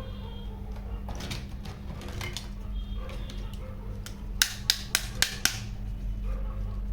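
Scattered clicks and taps, then five sharp clicks in quick succession about four and a half seconds in, over a steady low hum.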